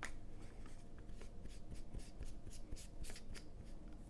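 Metal clip-on phone lens being screwed by hand onto its clip: a string of faint, irregular clicks and light rubbing, about three or four a second.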